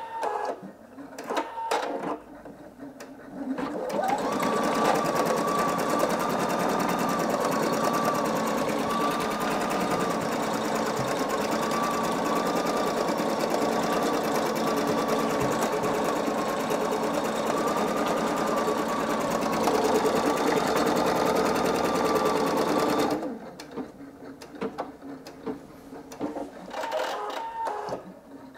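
Singer EM9305 embroidery machine stitching out a design. Scattered clicks come as it starts, then about twenty seconds of steady, rapid stitching with a slightly wavering whine. It stops abruptly a few seconds before the end, halting for a thread colour change, and softer scattered clicks follow.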